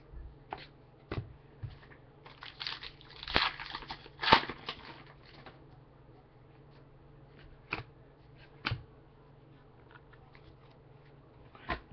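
Trading cards handled and flipped through by hand: scattered sharp card snaps and clicks, with a stretch of crinkling and rustling from about two to five and a half seconds in.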